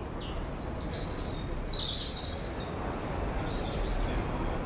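Small birds chirping in short, falling runs of high notes, mostly in the first half, with fainter chirps later, over steady low background noise of outdoor ambience.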